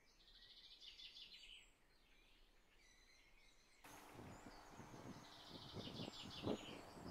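Faint birdsong: quick chirping phrases in the first two seconds and again in the second half. A low, uneven rumbling noise comes in about four seconds in.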